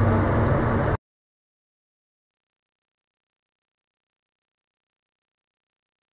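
About a second of steady outdoor background noise, then the sound cuts off abruptly to dead digital silence: the audio track drops out.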